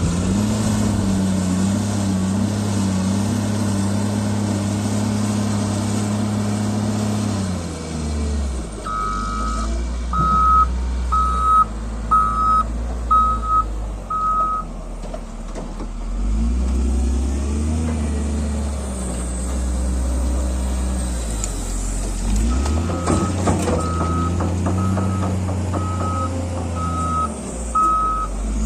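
Heavy diesel construction machine running, its engine speed falling and rising several times. A reversing alarm beeps in two runs of steady beeps, about one a second.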